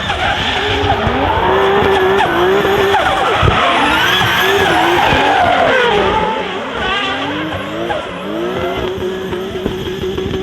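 Drifting Toyota Supra's turbocharged 2JZ-GTE straight-six revving up and down, with sharp anti-lag cracks and tyre squeal. It is loudest through the middle and eases about six seconds in.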